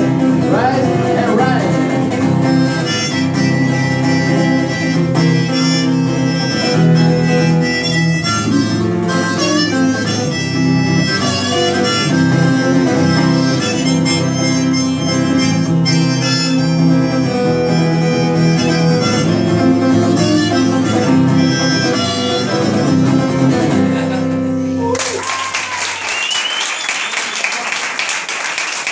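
Acoustic guitar strummed under a harmonica playing the closing instrumental of a folk-blues song, performed live. The music stops about 25 seconds in and the audience breaks into applause.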